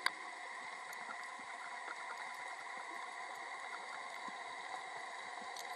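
Underwater ambience on a reef seabed: a steady hiss with a sharp click right at the start and a few faint ticks.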